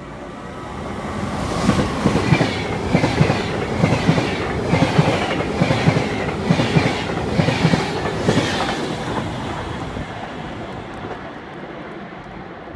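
Electric locomotive-hauled SBB passenger train passing through at speed: its wheels clatter over the rail joints in regular paired clacks, swelling as the coaches go by and fading as the train moves away.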